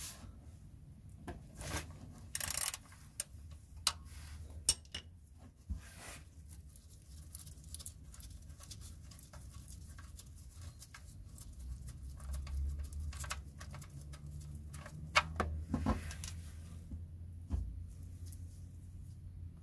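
Scattered clicks and light metallic taps of a socket ratchet and the drain plug being worked loose from a Nissan Micra K12's oil sump, over a low steady hum.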